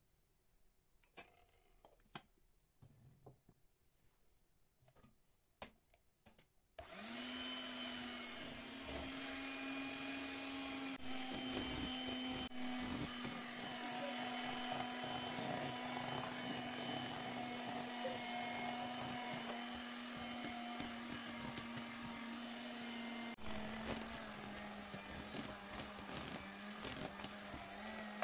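A few light clicks and knocks, then an electric mixer switches on and runs steadily with a constant whine. Its pitch drops a little near the end.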